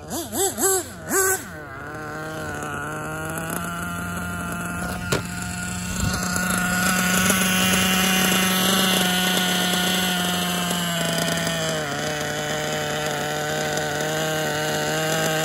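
Novarossi Bonito 7-port .21 nitro engine revving in quick up-and-down blips for about the first second and a half, then idling steadily. It is running very rich on its break-in tanks.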